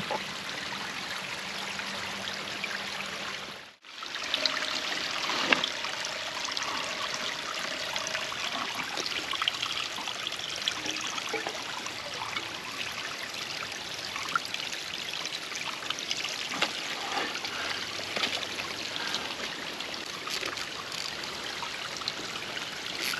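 Shallow creek water trickling and flowing steadily over rocks, with a few light clicks near the end.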